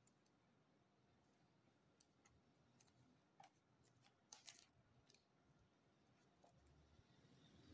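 Near silence with faint rustles and clicks of heavy wallpaper sample-book pages being turned, the loudest a little past the middle.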